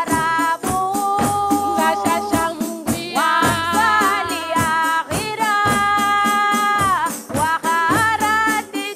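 Debaa, a Comorian devotional song: women singing long held, ornamented notes over a steady beat of hand-struck frame drums with jingles, about four strokes a second.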